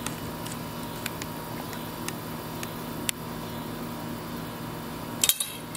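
Steady background hum, then about five seconds in a quick burst of sharp clicks as an arrow shot from a bow strikes and skids across the concrete sidewalk.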